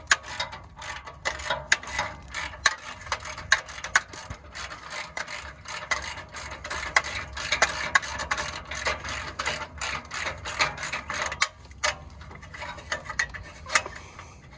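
Ratchet wrench clicking in rapid, uneven runs of strokes as a loosened fastener is backed out.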